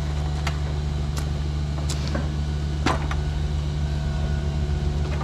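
An engine running steadily with a low hum, with a handful of sharp knocks or taps over it.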